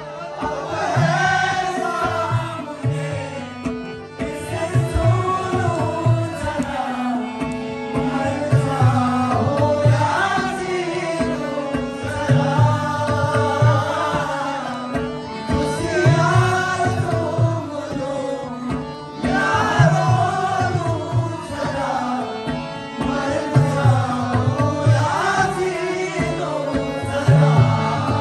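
A man singing a melodic song with harmonium accompaniment, held reedy chords under the voice, over a steady rhythm of low hand-drum strokes.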